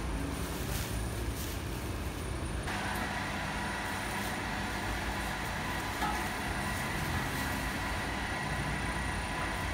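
Large bakery spiral dough mixer running, its motor and kneading hook giving a steady hum and whine as it mixes a bowl of flour and water for taftoon dough. For the first few seconds before that whine comes in there is a rustling of flour being scooped from a sack.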